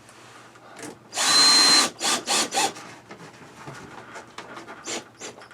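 Power drill driving a screw: one run of a little under a second with a steady high motor whine, starting about a second in, then three short quick bursts.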